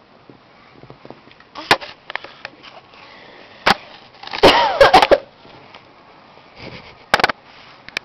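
A woman coughing in sharp single bursts a couple of seconds apart, the loudest a quick run of coughs about halfway through, mixed with a short wavering voice.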